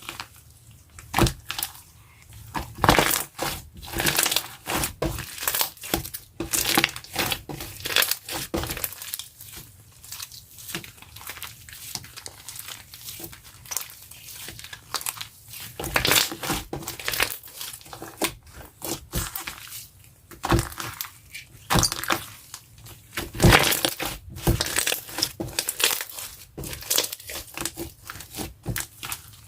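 Crunchy slime with packing-foam bits being squeezed, pressed and stretched by hand, giving a fast, irregular run of crackles and small pops with louder bursts now and then.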